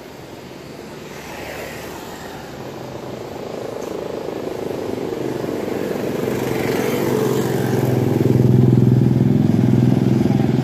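A motorcycle engine drawing nearer along the street, growing steadily louder and loudest about eight to ten seconds in.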